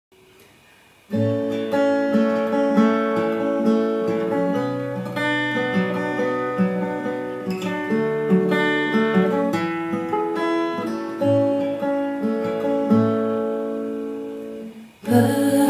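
Acoustic guitar playing an instrumental intro of picked chords, starting about a second in. It dips briefly near the end, then comes back louder and brighter.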